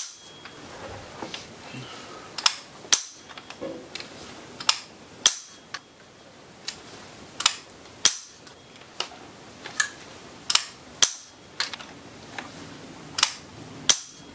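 Unloaded AR-15 being dry-fired again and again: a run of sharp mechanical clicks, some in close pairs, as the safety selector is flipped, the hammer falls on the trigger pull and the charging handle is pulled back to reset it.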